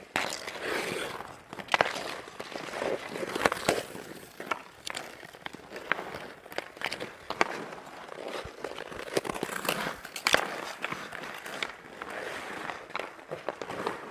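Hockey skate blades scraping and carving on outdoor ice, with frequent sharp clacks of hockey sticks striking pucks and the ice.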